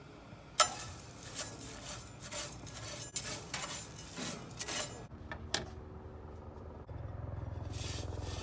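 A spatula scraping and stirring dry crushed eggshells in a grill pan as they roast: repeated irregular scrapes with the shells rattling, starting with a sharp clank, for about five seconds. A low steady hum comes in near the end.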